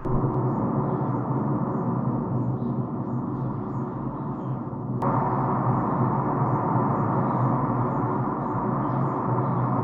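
A sustained, gong-like drone with a steady low hum and a faint tick repeating a little more than once a second. A sharp click about halfway through, after which the drone is brighter.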